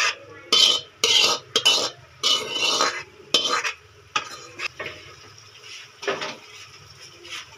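Steel spoon scraping and knocking against the inside of a steel pan as wet tomato masala is emptied out of it: a quick run of loud scrapes for about three seconds, then a few lighter strokes.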